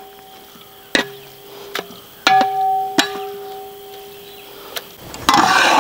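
A steel spoon knocking against a metal pan while stirring thick chilli paste, about five knocks, each leaving the pan ringing with a clear tone. A louder rough noise comes near the end.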